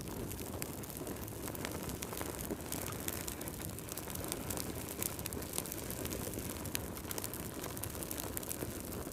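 Fire crackling: a steady low rush of burning with many small, sharp crackles and pops scattered throughout.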